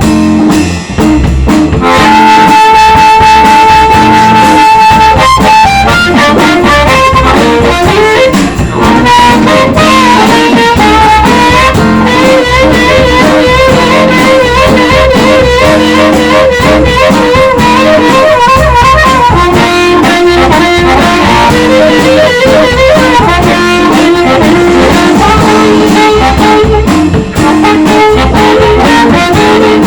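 Live electric blues band playing an instrumental shuffle: a blues harmonica solo leads, opening with one long held note and then wavering, bending phrases, over electric guitar, bass and drums.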